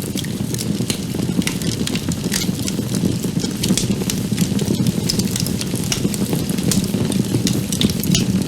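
Steady sizzling with many small crackles, as of food frying in a pan, starting suddenly.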